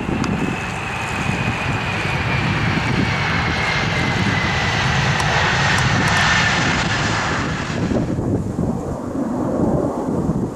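Large jet airliner passing by, its engine whine sliding slowly down in pitch over a loud rush of jet noise. The noise swells to a peak about six seconds in and drops off sharply a couple of seconds later. Gusty wind rumbles on the microphone throughout.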